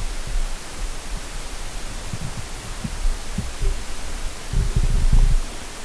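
Steady hiss and low hum of a recording microphone, with soft low thumps scattered through and a cluster of them near the end.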